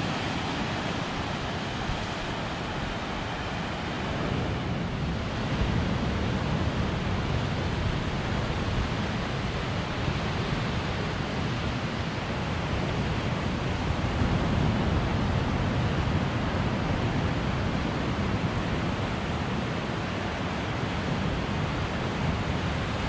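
Ocean surf breaking and washing up a sandy beach: a steady rush of noise that swells and eases gently.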